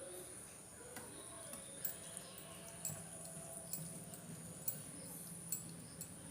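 Close-up eating sounds of a meal of rice and dal: small wet clicks and smacks, about one a second.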